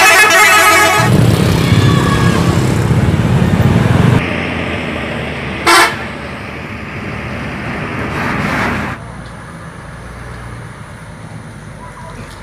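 Bus horn sounding loudly through the first second. The bus engine then rumbles heavily as it passes and fades. A second short horn blast comes a little before the six-second mark, and engine noise swells again around eight seconds.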